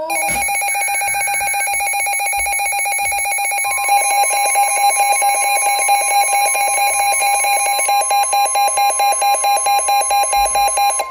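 Midland weather alert radios sounding their electronic alarms for a severe thunderstorm warning: loud, rapidly pulsing beeps, about four a second near the end. About four seconds in, the NOAA Weather Radio broadcast's steady warning alarm tone joins them.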